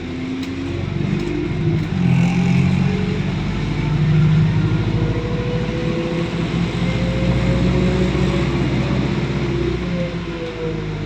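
Diesel engine of an ADL Enviro400 double-decker bus pulling hard, getting louder over the first couple of seconds, then rising in pitch as it picks up speed.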